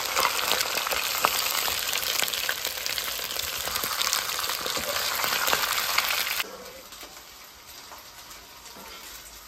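Zongzi (sticky-rice dumplings) sizzling as they pan-fry in oil, a dense hiss with scattered small crackles. About six and a half seconds in the sizzle drops suddenly to a much quieter level and carries on.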